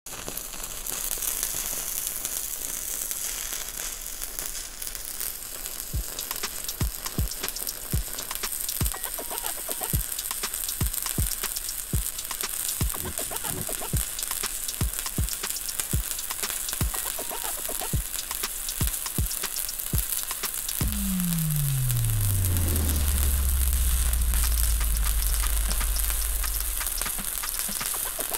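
Stick (SMAW) welding arc burning steadily on an overhead filler pass: a constant frying sizzle full of fine crackles. Through the middle stretch there are low thuds about once a second. About three-quarters through, a low hum comes in, slides down in pitch and then holds, louder, until near the end.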